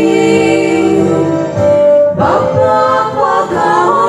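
Voices singing a devotional hymn in long held notes that move from note to note, with little or no instrument behind them.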